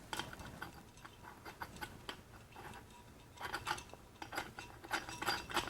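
Faint, irregular clinks and light scrapes of a glass pendant shade being fitted over its light socket and a threaded metal socket ring being handled.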